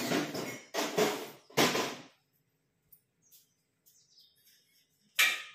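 Kitchen utensil handling noise: three short clattering bursts in quick succession, then about five seconds in a sharp metallic clink with a brief ring, like a metal vessel being set down on the counter.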